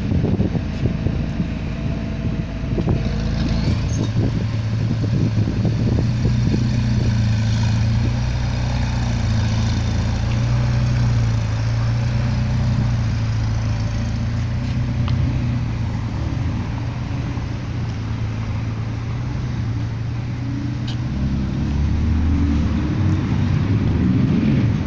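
McLaren 720S twin-turbo V8 idling steadily, then its note rises near the end as the car pulls away slowly.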